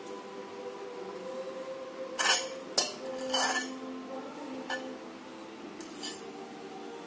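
Metal spoon clinking and scraping against a ceramic plate and the rim of a stainless steel pot as spice powders are tipped onto raw chicken: about five separate clinks and short scrapes, from about two seconds in to near the end.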